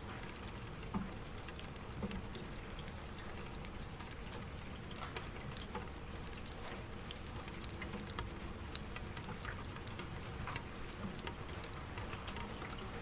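Steady rain falling, with many separate drops pattering and a few louder drop hits about one and two seconds in.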